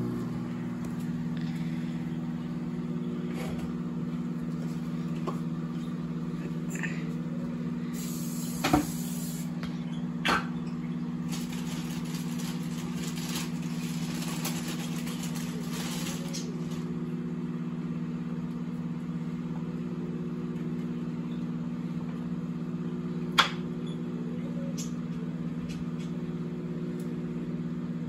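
Countertop microwave oven running: a steady, even hum, broken by a few short, sharp clicks.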